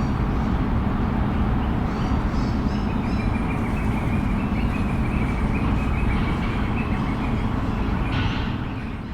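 City ambience field recording: a steady low rumble of traffic, with short high bird chirps over it, fading out near the end.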